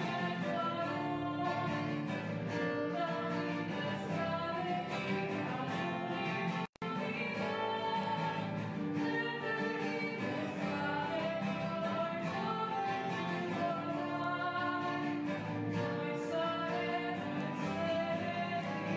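Music with guitar and singing, on long held notes. The sound cuts out for a split second about seven seconds in.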